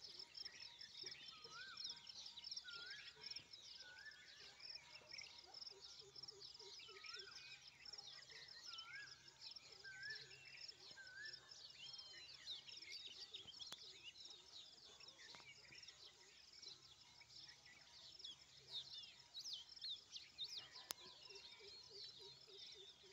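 A faint dawn chorus of many small birds chirping and trilling together. Through the first half, one bird repeats a short up-and-down call about once a second.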